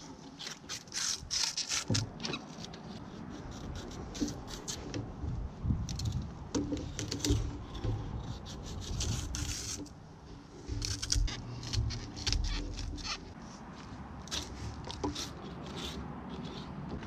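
Knife scraping and whittling a dry palm frond stem: a run of short, irregular scrapes and crackles.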